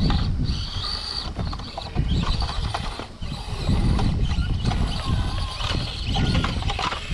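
Small 1/24-scale RC rock crawlers' electric motors and geartrains whining thinly as they crawl over rocks, with scattered clicks and knocks under a steady low rumble.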